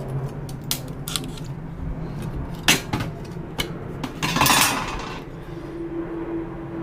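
Metallic clinks and knocks from a telecom module's metal housing and circuit board being handled and taken apart, with one sharp knock a little before three seconds and a longer scraping sound around four and a half seconds in.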